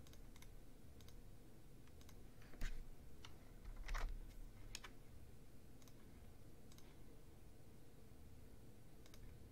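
Computer mouse clicking in scattered single clicks, with a couple of louder knocks a few seconds in.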